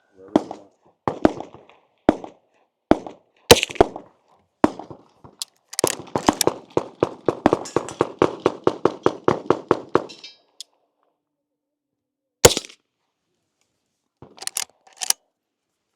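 .22 rifle gunfire: a few spaced single shots, then a fast string of about five shots a second lasting some four seconds, then one more shot and a short pair near the end.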